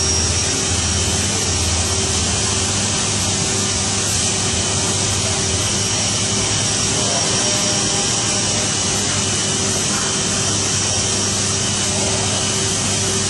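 Mazak 515/50 vertical machining center running under power: a steady machine hum with a faint high whine and a constant hiss, unchanging throughout.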